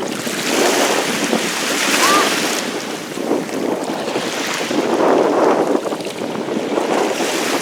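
Sea waves washing in at the shore, swelling and easing off a few times, with wind on the microphone.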